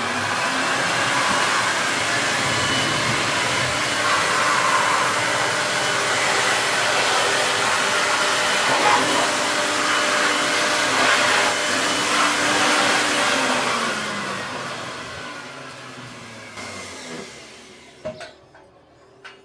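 Handheld electric blower running flat out, blasting crumbled plaster and dust off timber roof beams, a steady rushing whine. About fourteen seconds in it winds down, its pitch and loudness falling until it stops, and a few small knocks follow near the end.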